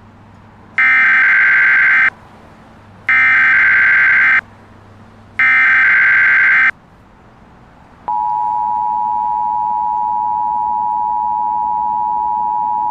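Emergency Alert System signal: three short bursts of screeching digital header tones about a second apart, then the EAS two-tone attention signal, a steady dual-tone buzz that starts about eight seconds in.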